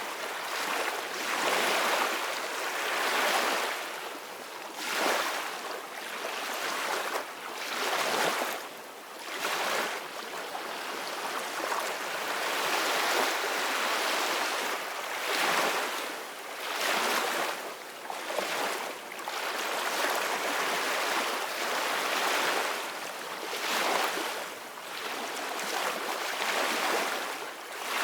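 Ocean waves breaking and washing on a beach, the surf swelling and fading every few seconds.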